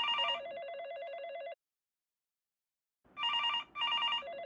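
Telephone ringing in a repeating pattern: two short, bright rings, then a warbling trill. After a silence of about a second and a half the pattern starts again, about three seconds in.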